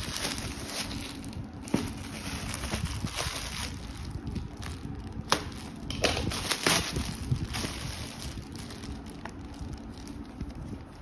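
Plastic wrapping crinkling and a cloth carry bag rustling as a packaged item is unwrapped by hand, with a few sharp clicks and snaps.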